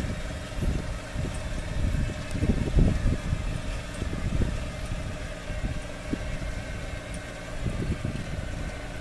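Steady mechanical hum of the trailer's Cummins Onan diesel generator and electric winch while the 30-foot mast is hoisted, under irregular low rumbles that are loudest about three seconds in.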